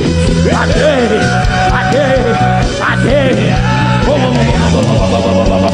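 Worship music with steady sustained low chords, the chord changing about a second in, under a man's voice chanting in tongues in long gliding and held tones.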